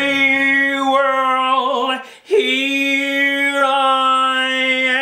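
A man singing long, held dramatic notes, the first breaking off about two seconds in and a second one following, with a slight waver in the pitch.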